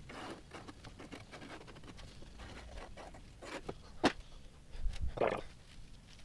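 Quiet handling sounds on a bare steel car floor: gloved hands rustling and a marker scraping as the outline of a patch panel is drawn, with a single sharp tap about four seconds in.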